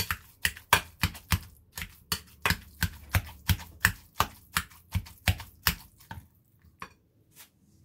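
A quick, even run of sharp taps or knocks, about three a second, thinning to a few scattered ones about six seconds in.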